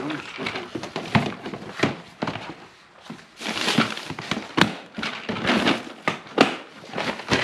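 Items being rummaged through in a plastic storage tote: hard plastic cases knocking and clacking against each other and the tote, with a plastic bag rustling about halfway through.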